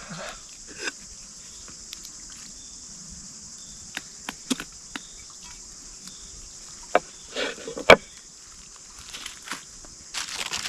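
Steady high-pitched insect chorus in the background, with scattered sharp clicks and knocks, the loudest near the end, and a brief rustle.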